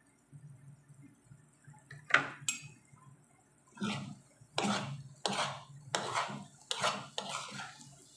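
Metal spoon knocking and scraping against a nonstick frying pan while stirring sautéed chayote and egg. There are two sharp knocks about two seconds in, then a run of scrapes about every two-thirds of a second through the second half.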